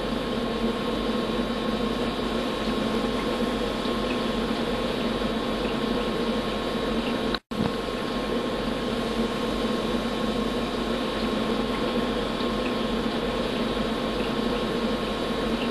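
Steady machine-like hum and hiss with a faint constant high whine, cutting out for an instant about halfway through.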